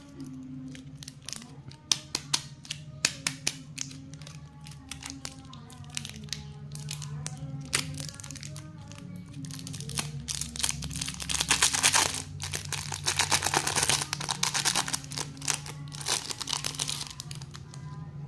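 Plastic lollipop wrappers and packaging being handled: sharp clicks and taps in the first few seconds, then a long stretch of dense crinkling about halfway through. Steady background music plays underneath.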